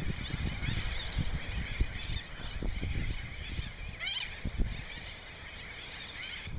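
Seabird colony: many birds calling at once in a dense chorus of short high calls, with one louder rising call about four seconds in. Irregular low rumbling runs underneath.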